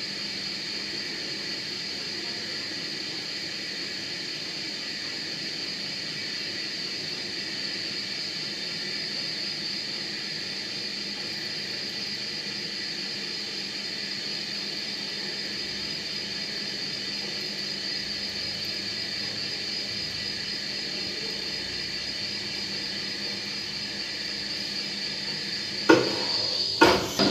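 Automatic milling machine running steadily with a constant high-pitched whine and a low hum as it cuts grooves into a steel tea-processing roller. Two sharp knocks near the end.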